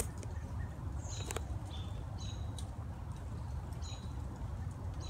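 Small birds chirping: about four short, high chirps spread across a few seconds, over a steady low rumble.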